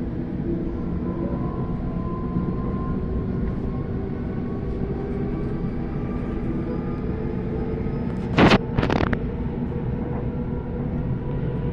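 Sydney Trains Waratah (A set) electric train heard from inside the carriage while running: a steady rumble with faint whining tones that drift slowly in pitch. About two-thirds of the way through come two loud, short clatters about half a second apart.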